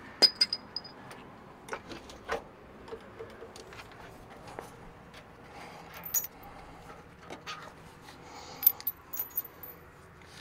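Scattered light metallic clinks and rattles of hand tools and hardware being handled. Some clicks ring briefly, and the sharpest come just after the start and again about 8.7 seconds in.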